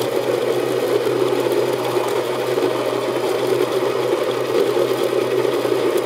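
Baratza Encore conical-burr coffee grinder running steadily, its motor hum mixed with the grinding of coffee beans lightly dampened with a few drops of water against static.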